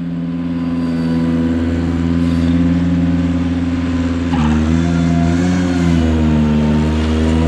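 Compact tractor engine revving up and then running steadily at high speed, with a brief change in pitch about four seconds in.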